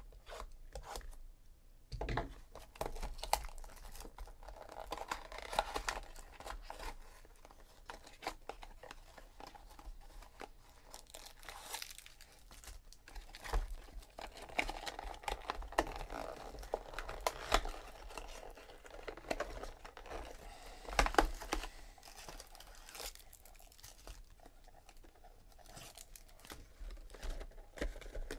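Wrapper tearing and crinkling as a sealed box of baseball cards is opened, with foil card packs crinkling and clicking as they are handled and taken out, in a series of irregular crackles.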